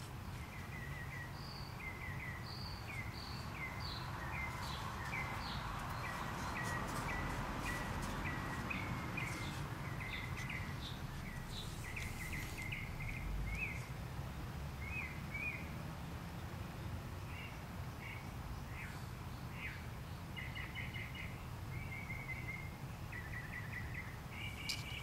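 Small birds chirping outdoors, a long string of short high notes with a few quick trills, over a steady low background rumble. A few light clicks come from the headlight being handled.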